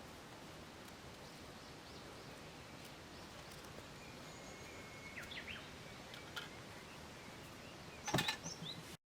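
Faint outdoor ambience: a steady hiss with small birds chirping about five seconds in, and a louder burst of sharp, ringing sounds near the end, after which the sound cuts off suddenly.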